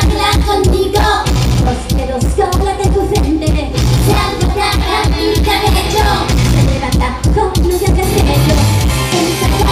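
A woman singing live into a microphone over loud rock accompaniment with a steady drum beat, heard through stage speakers.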